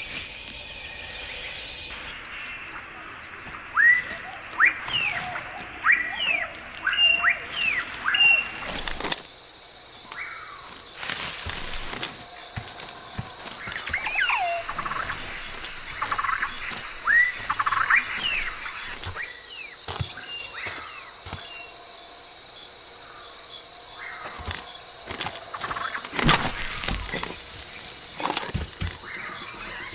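Jungle ambience: a steady high insect drone under repeated bird calls, quick sweeping whistles in two bouts, with a few sharp clicks near the end.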